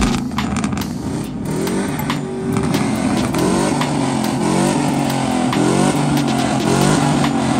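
Truck engine revving again and again, its pitch rising and falling, loud through the exhaust.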